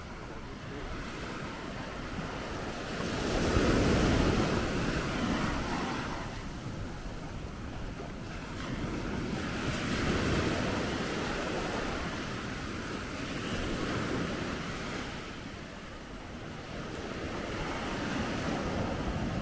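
Surf washing onto a sandy beach, swelling and fading every few seconds, the biggest swell about four seconds in, with wind buffeting the microphone.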